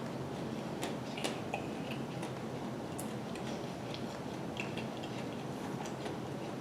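Someone chewing a pork egg roll: scattered small, sharp crunches and mouth clicks over a steady background hiss.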